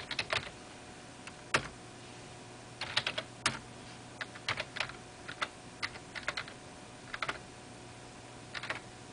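Typing on a computer keyboard: short clusters of keystrokes with pauses between, as short commands are typed in.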